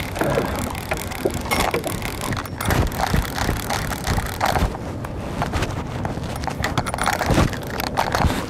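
Fishing reel being cranked to bring in a hooked bluefish, its gears clicking and rattling irregularly over a low rumble of wind on the microphone.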